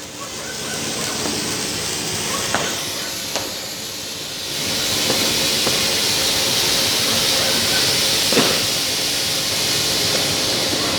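Steady hissing of fireworks that grows louder about four and a half seconds in, with scattered sharp pops.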